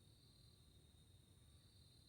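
Near silence: a faint, steady high-pitched drone in two bands over a low rumble.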